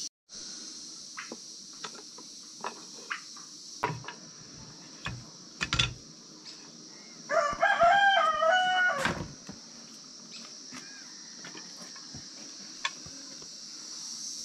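A rooster crows once, about seven seconds in, a single call of about two seconds. Under it run a steady high insect chirring and scattered light knocks of wood and tools.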